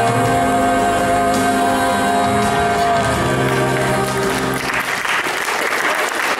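Music with long held chords that fades out about four and a half seconds in, as audience applause starts and carries on.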